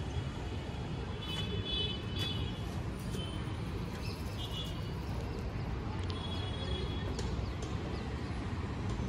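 City ambience: a steady low rumble of distant traffic, with short bird chirps now and then.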